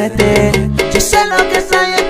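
DVD menu background music: an upbeat Latin dance tune with percussion.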